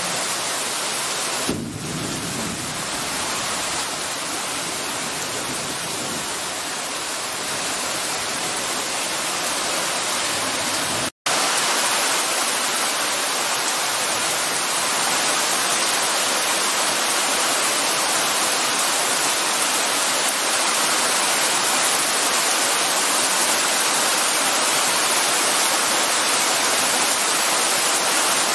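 Heavy rain pouring down steadily in a night downpour, a dense even hiss of rain on the street and ground. It breaks off for a split second about eleven seconds in, then carries on a little louder.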